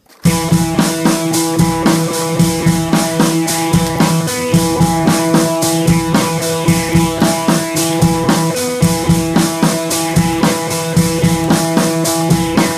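Rock-style background music with a driving drum-kit beat, bass drum and guitar, starting abruptly just after the start.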